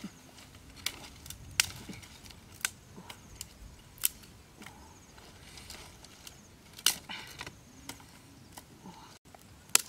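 A large knife chopping and shaving a dry stick held in the hand. About half a dozen sharp, irregular cracks, with lighter ticks and scraping between.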